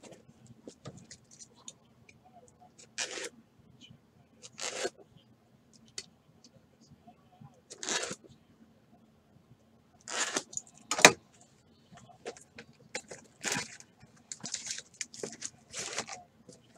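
Trading-card packs and their cardboard box being handled on a tabletop: packs slid out, stacked and set down. There are scattered short scrapes and crinkles of cardboard and foil wrapping.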